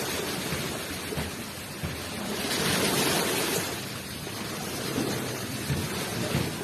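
Ocean waves washing onto the shore, one wave surging to a peak about two and a half seconds in and then receding.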